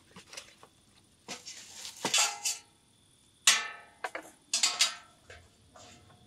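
Stainless steel bowl and wire grate of a portable round charcoal grill knocking and clanking against each other and the wooden table as they are unpacked, several sharp metal knocks with a brief ring, the loudest about three and a half seconds in.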